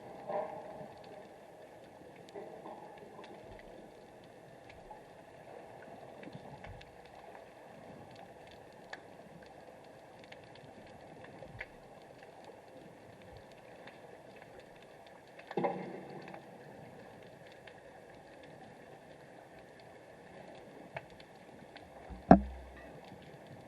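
Muffled underwater ambience heard through a submerged camera: a steady low wash of water with scattered faint ticks. There are two sudden splashing knocks, one about two-thirds of the way in and a louder, sharper one with a low thud near the end.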